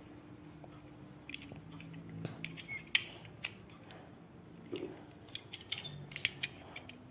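Quiet room with scattered light clicks and taps, and one faint short voice sound a little past the middle.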